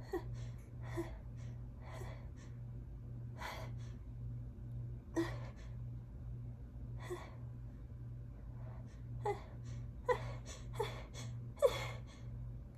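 A person gasping and breathing in sharply, over and over, as a sneeze builds up. The breaths come faster near the end, some with a short catch of voice.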